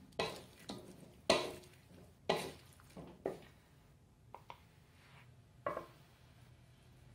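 Wooden spatula stirring vegetables in an aluminium wok, knocking and scraping against the metal in about six sharp strokes over the first three seconds or so. A couple of light clicks from a metal spoon in the wok follow, and one more strike comes near the end.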